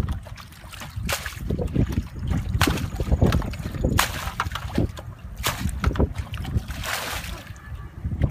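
Plastic bucket bailing muddy water out of a shallow pit: water sloshing as it is scooped, then splashing out onto the ground, about every second and a half.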